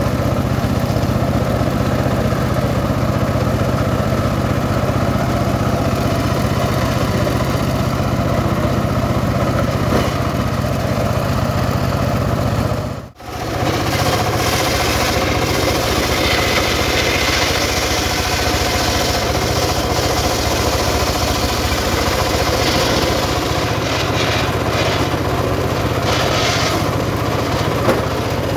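Stationary engine of a homemade circular sawmill running steadily, spinning the saw blade. After a brief drop-out about thirteen seconds in, a log is fed into the blade and the sawing adds a hissing, rasping layer over the engine.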